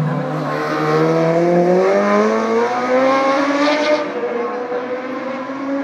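Racing motorcycle engine accelerating hard away from the corner, its note rising with a gear change about two seconds in, then fading after about four seconds.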